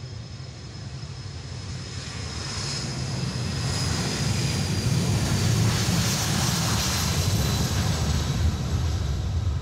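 A BAe 146-family four-engine jet airliner rolling along the runway. Its engines' roar grows louder as it passes, with a high whine that slowly falls in pitch.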